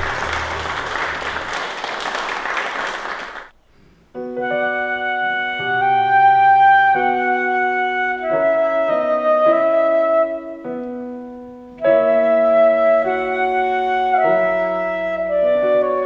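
Clapping from an audience for about three and a half seconds, then a short pause, and a flute starts a melody accompanied by a digital piano.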